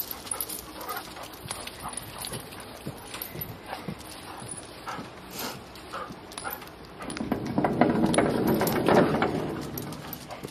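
Two dogs and a person walking on wet pavement: light scattered clicks of claws and footsteps. Near the end comes a louder rustling stretch lasting a few seconds.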